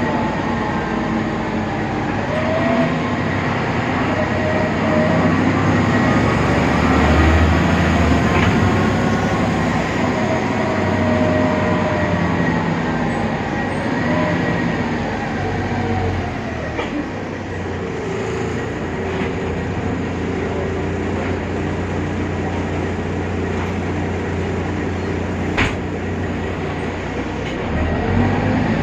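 Interior running sound of a BredaMenarini Avancity Plus city bus on the move: its Deutz engine and ZF 6HP Ecomat automatic gearbox running under way, the engine and drivetrain note rising and falling as it drives. One sharp click near the end.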